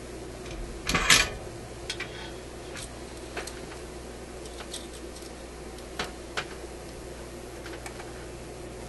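Hand tools and component leads clicking and tapping against the metal chassis of an RCA A25 tube radio being worked on, with one louder rustling clatter about a second in and scattered single clicks after it, over a steady low hum.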